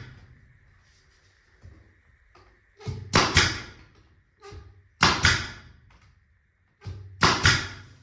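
Pneumatic nail gun firing into door casing trim: three sharp double pops about two seconds apart, with a few lighter knocks between.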